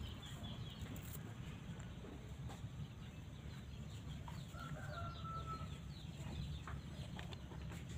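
Quiet garden ambience with a steady low rumble, a short bird call about five seconds in, and a few light knocks.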